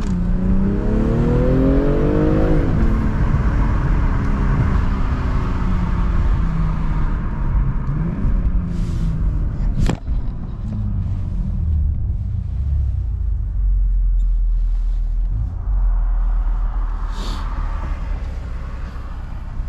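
BMW M340i's stock-exhaust turbocharged 3.0-litre inline-six accelerating: its pitch climbs, drops at an upshift and climbs again for a couple of seconds, then falls away to a low, steady cruising rumble. A single sharp click comes about ten seconds in.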